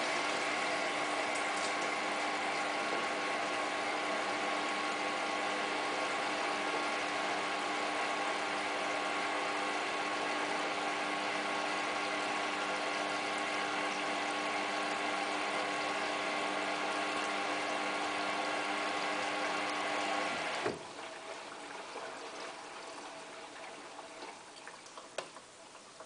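Hotpoint Ultima WT960 washing machine filling with water at the start of its wash cycle: a steady rush of water with a humming tone through the inlet valve, which cuts off suddenly about 20 seconds in, leaving a fainter sound that fades away.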